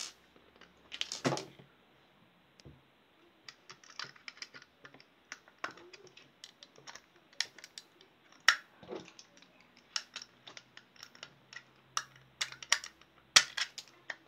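Hard plastic case of a plug-in night light being pried open: a run of irregular clicks and snaps, some louder than others, as the case resists.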